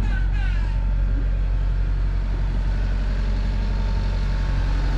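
A sailing yacht's inboard engine running steadily as the boat motors along, a constant low hum.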